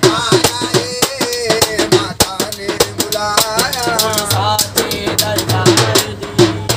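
Live Hindi devotional bhajan: a man singing a bending melody over a hand drum beaten in a quick, steady rhythm.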